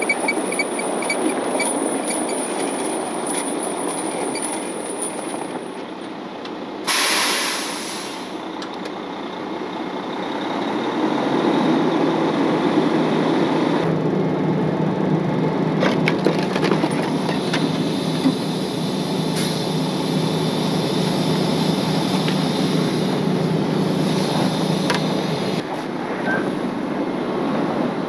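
Heavy diesel wrecker running while its winch pulls a snow-buried pickup out of a ditch. The engine settles into a steady, higher note through the middle and drops back near the end. A short hiss of air comes about a quarter of the way in.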